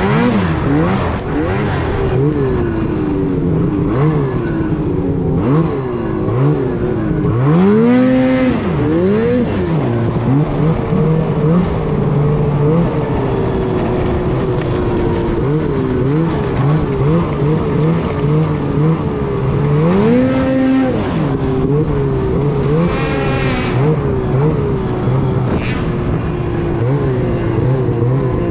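Snowmobile engine running hard under constantly changing throttle, its pitch rising and falling again and again. It surges sharply about eight seconds in and again about twenty seconds in, and holds a steadier high note in between.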